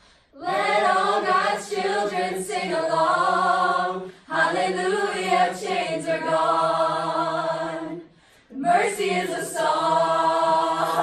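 A mixed choir of teenage voices singing a cappella, in three phrases with short breaks between them.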